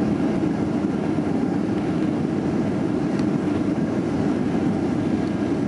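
Steady rumble inside the cabin of a Boeing 737-400 rolling out on the runway after landing, its CFM56 engines running.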